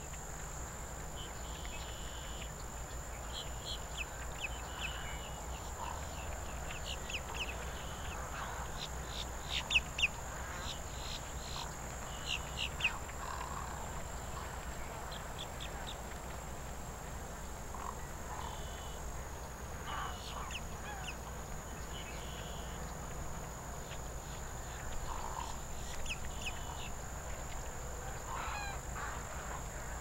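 Birds calling from a mixed flock of wading birds and ducks: scattered short, high calls and brief whistled notes, with a louder flurry about ten seconds in, over a steady high-pitched drone.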